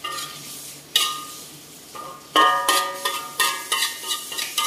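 Metal slotted spatula knocking and scraping against a steel wok while stirring chili prawns, the wok ringing briefly after each stroke. One stroke comes about a second in, then a run of strokes about three a second from halfway on.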